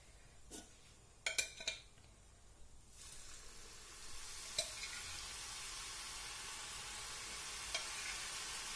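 A few light knocks, then about three seconds in a steady sizzle starts as butter murukku dough goes into hot oil and deep-fries.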